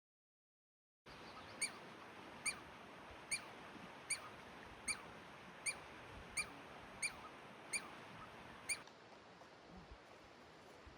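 After a second of dead silence, a small animal gives one short, high chirp call over and over, about one every 0.8 seconds, ten in all, over faint steady background noise; the chirping stops near the end.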